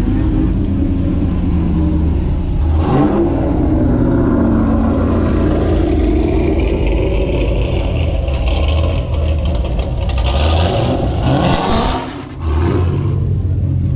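Fifth-generation Chevrolet Camaro's engine running at low revs as the car rolls past and pulls away on wet pavement, with the revs rising and falling a little. About ten seconds in a louder rush of engine and road noise swells, dips briefly and then eases.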